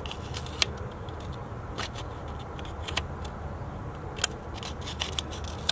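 Steady low background rumble with a few faint, scattered clicks.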